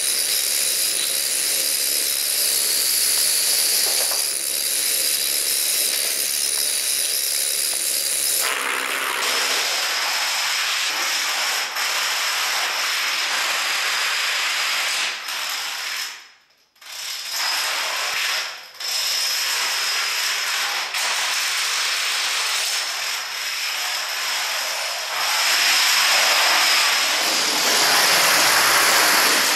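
Long lines of plastic dominoes toppling one after another in a dense, continuous clatter. It cuts out briefly twice in the middle and gets louder near the end as a large domino field falls.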